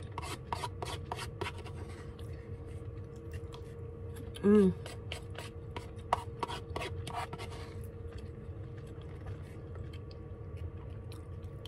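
A plastic spoon scraping and clicking against a paper bowl of scrambled eggs in quick irregular strokes, with a short hummed 'mm' about four and a half seconds in. A steady hum from the van's heater runs underneath.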